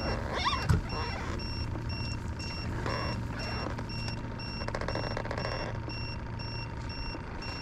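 Rapid, steady electronic beeping from the boat, about three high beeps a second, over a low motor hum, while branches brush and crackle against the boat as it is pushed under an overhanging limb.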